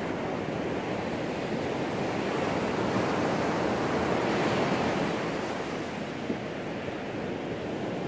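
Pacific Ocean surf: waves breaking and washing up the sand, swelling to a peak about halfway through and then easing off.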